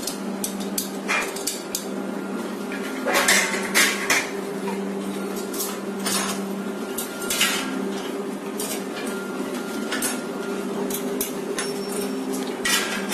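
Irregular metal clinks and clanks as a large-format printer's steel stand is assembled: bolts, tools and frame parts knocking against the steel, with a cluster of louder clanks about three to four seconds in. A steady low hum runs underneath.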